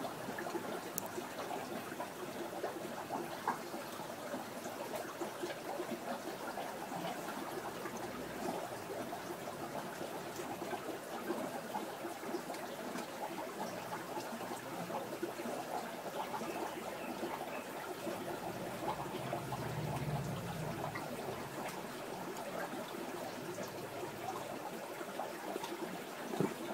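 Steady trickle of aquarium water, with a brief low rumble about twenty seconds in.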